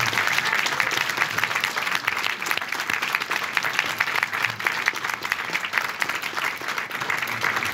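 Audience applauding: many hands clapping in a dense, steady crackle.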